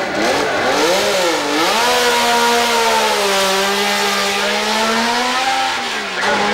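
Historic Formula One flat-12 racing engine at speed. Its pitch swings up and down over the first two seconds, then holds high and nearly steady for about four seconds before a brief dip near the end.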